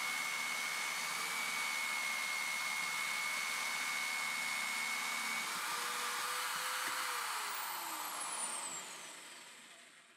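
Bench drill press running steadily as it bores a hole through a high-pressure laminate (HPL) panel, with a whine that holds its pitch. Near the end the motor is switched off and winds down, its whistle falling away into near silence.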